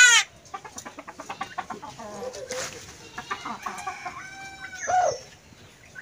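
Caged common myna calling: a loud, short call right at the start, then a run of rapid clicks followed by a string of varied chattering and whistled notes.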